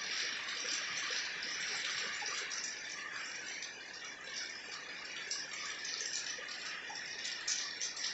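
Heavy rain falling steadily on a concrete courtyard, steps and potted plants: a dense hiss of countless drops and small splashes.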